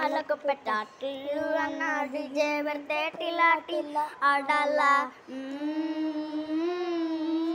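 A child's high voice singing a song, with quick, separate syllables for about five seconds and then one long held note.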